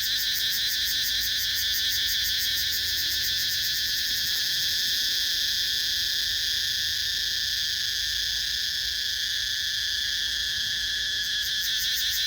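Loud, steady chorus of night-calling insects up in the trees: a dense, shrill, high-pitched trilling with a rapid pulsing texture that runs on without a break.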